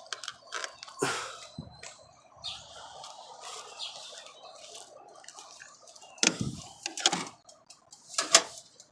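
A screwdriver poking and prying at a melted plastic NES light gun in a toaster oven: scattered clicks and scrapes, with sharper knocks about six, seven and eight seconds in.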